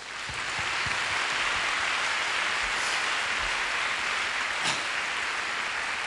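Audience applause, swelling up within the first second and then holding steady.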